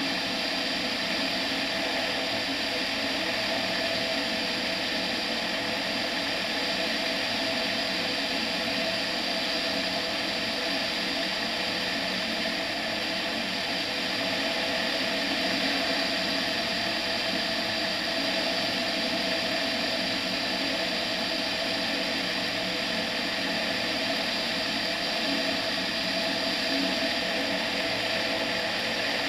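Tetras ultralight aircraft in steady flight: the engine and propeller running at a constant cruise setting, mixed with wind rushing past the outside-mounted camera.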